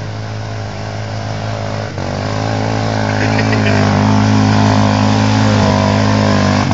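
Off-road motorcycle engine held at high revs. It grows louder about two seconds in and stays steady and loud after that.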